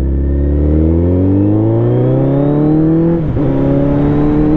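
Suzuki Hayabusa Gen-2's inline-four engine with a slip-on exhaust accelerating hard under throttle. The pitch climbs steadily for about three seconds, dips sharply at an upshift, then climbs again.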